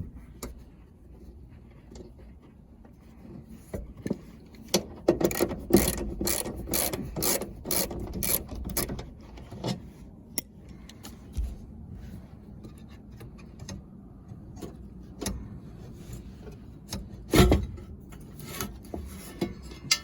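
Hand work on car seatbelt fittings and trim: scattered clicks, scraping and knocks, with a dense run of rapid clicks from about five to nine seconds in and one loud knock near the end.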